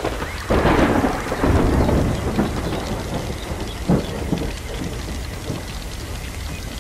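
A thunderclap breaks about half a second in and rolls on, with further sharp cracks near two and four seconds, over steady rain.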